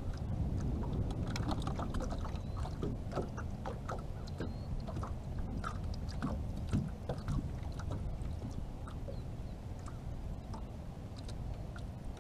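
Steady low wind-and-water rumble around a small aluminum fishing boat. Over it come many small crisp clicks and crackles as fingers work a sugar snap pea onto a jig hook.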